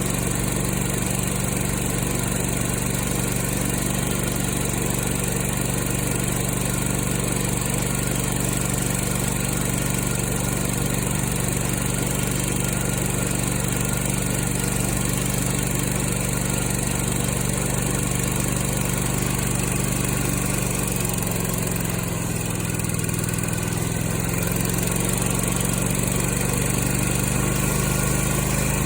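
Brand-new Kohler Command Pro EFI V-twin engine running steadily on its first start. About twenty-two seconds in its speed dips briefly, then picks back up.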